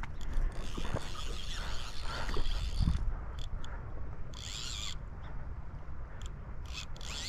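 Fly reel's drag ratcheting in short bursts as a hooked steelhead pulls line off, over a steady low rumble.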